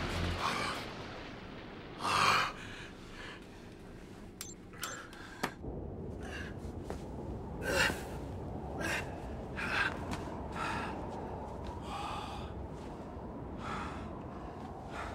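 A man gasping and grunting with effort in short, separate breaths, about one a second, with a few sharp clicks around the middle.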